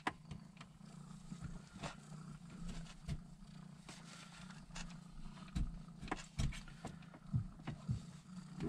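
Domestic tabby cat purring close to the microphone, a steady low buzz, with scattered soft knocks and clicks of hands working at the shifter.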